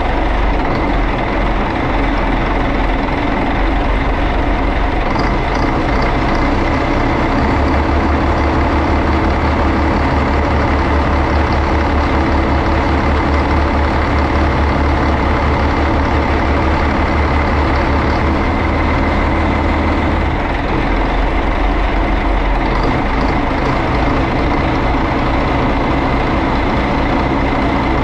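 Yanmar 6CZ six-cylinder turbocharged marine diesel running steadily on its test run after servicing of the head and fuel valves, with a thin steady turbocharger whine over the engine note. The low drone grows stronger for a stretch in the middle, then eases back.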